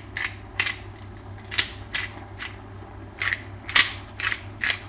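Hand-twisted pepper mill grinding black peppercorns, a series of short dry rasping crunches about two a second, one per twist of the mill.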